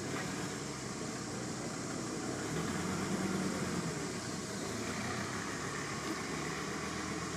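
Steady background hum and hiss, like a machine running, with the low hum swelling slightly about three seconds in.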